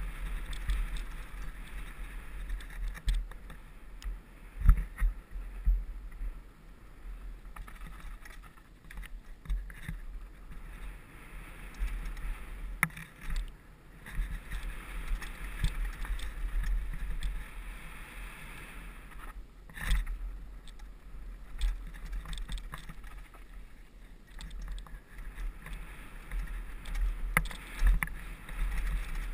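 Wind rumble on a helmet camera's microphone with the rattle and clatter of a hardtail mountain bike riding fast down a rough dirt trail, broken by sharper knocks from bumps, the hardest about five seconds and twenty seconds in.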